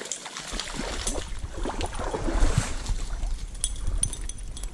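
Stream water sloshing and gurgling right at the microphone, with scattered knocks of handling and a low rumble that sets in about half a second in.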